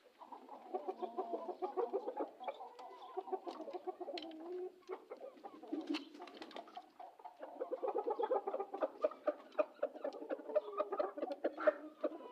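Chickens clucking in quick, continuous runs, easing off briefly near the middle and then picking up again.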